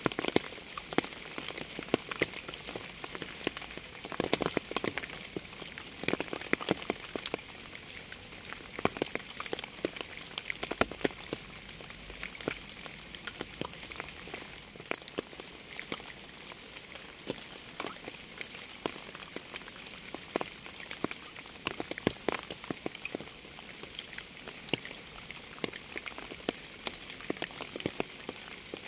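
Rain falling steadily: an even hiss with many separate drops tapping sharply on a surface.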